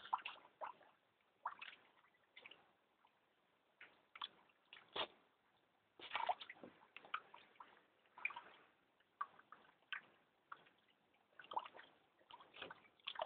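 A terrier pawing and dunking its muzzle in a plastic water bowl: irregular, fairly quiet splashes, drips and sloshes of water.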